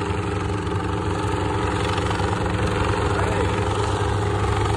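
Small three-bladed piston helicopter flying low overhead: a steady engine-and-rotor drone with a fast low pulsing, growing slightly louder.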